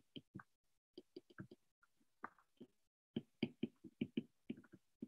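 Faint, irregular taps and clicks of a stylus on a tablet screen during handwriting, coming more densely from about three seconds in.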